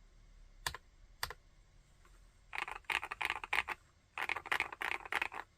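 Epomaker Brick 87 mechanical keyboard with Epomaker Wisteria linear switches being typed on: two single keystrokes, then two quick runs of rapid typing about a second long each.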